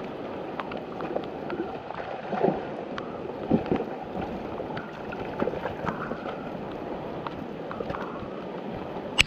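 Water sloshing and splashing in a creek, with a few louder splashes and scattered small knocks.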